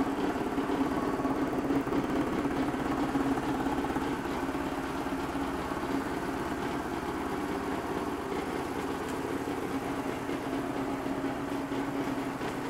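1998 BMW R1100R's air/oil-cooled boxer twin idling steadily during an idle test of the salvaged engine.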